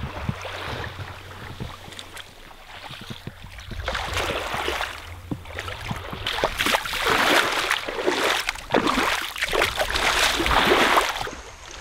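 Wind on the microphone and small waves washing onto a sandy beach, growing louder from about four seconds in.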